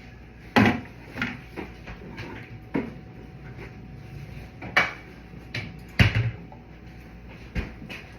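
Kitchen clatter: a string of sharp knocks and clunks from dishes, containers and cupboard doors being handled, about six louder ones spread over the eight seconds.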